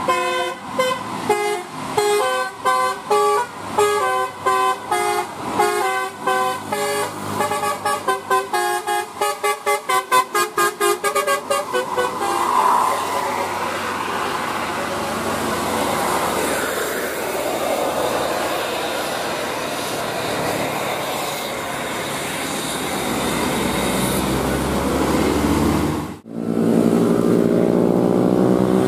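Bus basuri 'telolet' horn playing a rapid tune of short multi-tone blasts that come faster and faster, then stop about twelve seconds in. A steady rush of a bus going by follows. Near the end, after an abrupt break, an engine's pitch rises slowly.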